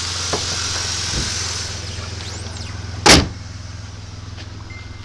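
Holden VY Calais's supercharged 3.8-litre L67 V6 idling with a steady low hum; a car door shuts with one loud thud about three seconds in, after which the idle is quieter.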